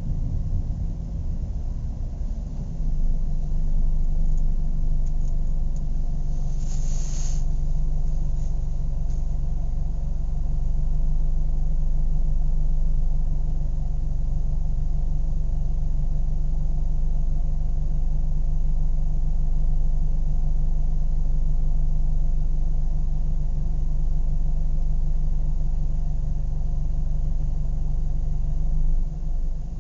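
Car engine idling steadily, getting louder about three seconds in, with a brief hiss about seven seconds in.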